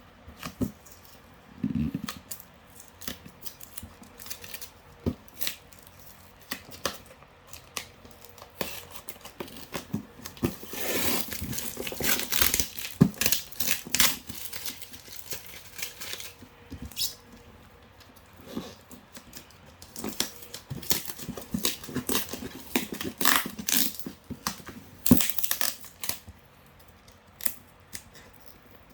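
A tightly sealed cardboard box being worked open by hand: the tape and cardboard are picked at and torn, with many scattered clicks and taps of handling and a few longer tearing rips, the longest about eleven seconds in.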